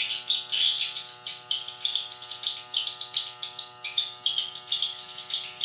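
A rapid, continuous stream of swiftlet chirps, dense and irregular, over a faint steady hum.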